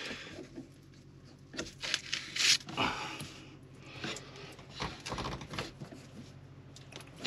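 A seawater strainer lid being twisted loose by hand against heavy resistance: breathy grunts of effort with scrapes and knocks from the housing, loudest about two to three seconds in.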